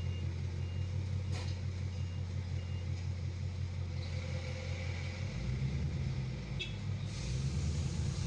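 Car engine running at idle with an uneven low rumble, from a car whose engine has a random/multiple-cylinder misfire (code P0300). About five seconds in the engine note drops and changes.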